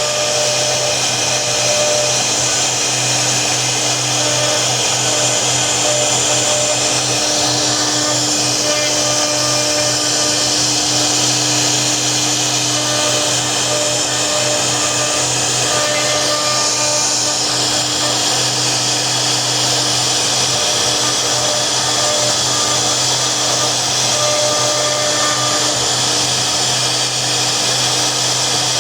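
CNC router spindle running steadily while cutting: a constant whine over a dense hiss at an even level throughout.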